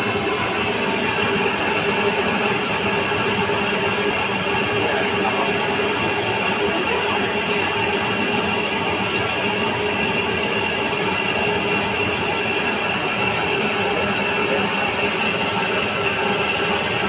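A steady, unbroken mechanical running noise with a faint constant hum in it, holding the same level throughout.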